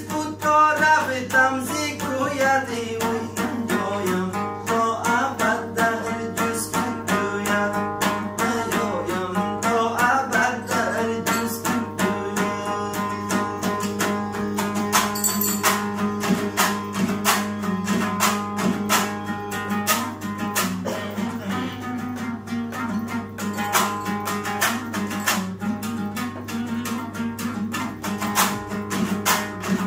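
Dambura, a long-necked lute, strummed in a fast, even rhythm. A man sings along over the first ten seconds or so, then the lute plays on alone.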